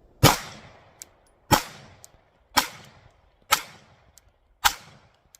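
Five 9mm pistol shots from a Glock 19-pattern pistol, fired at a steady pace of about one a second, each crack followed by a short echo, with faint small clicks between shots.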